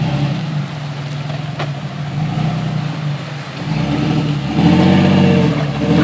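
Jeep Cherokee XJ engine pulling under load as the Jeep crawls through a creek and over a log, revving up and getting louder about four seconds in. Water splashes around the tyres.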